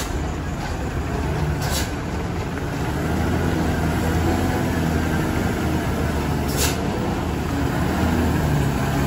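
Diesel engine of a Mitsubishi Fuso truck, a 220 PS intercooled model, running at low speed as it approaches and passes close by, getting louder about three seconds in. Two short hisses are heard, one near two seconds in and one near the end.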